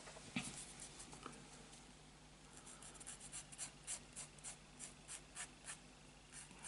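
Flory sanding stick rubbing back and forth on a small plastic model part, faint short scratchy strokes at about three to four a second from about two and a half seconds in. A single sharp click comes about a third of a second in.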